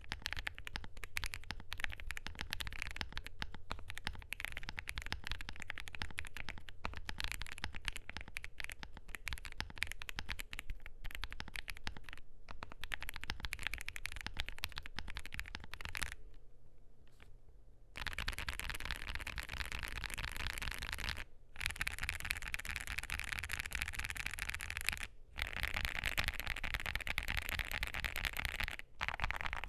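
Continuous typing on a KBDfans Phase One 65 mechanical keyboard with a polycarbonate plate, lubed and filmed CIDOO Matte switches and GeekArk keycaps: a dense run of keystroke clacks. The typing pauses for about two seconds a little past halfway, and the keystrokes sound brighter after it.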